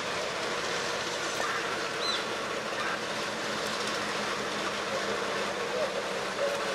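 EMD G12 diesel-electric locomotive with its 12-cylinder 567 engine running steadily as it leads a freight train slowly along the track, giving an even drone of engine and rolling wheels.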